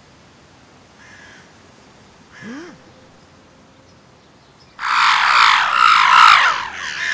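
A flock of large birds cawing and squawking together, many harsh calls overlapping, starting suddenly about five seconds in.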